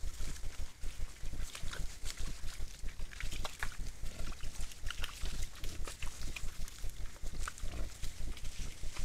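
Wild boars feeding and rooting in dry grass and leaf litter: many short crunches and rustles, with the odd brief grunt, over a steady low rumble.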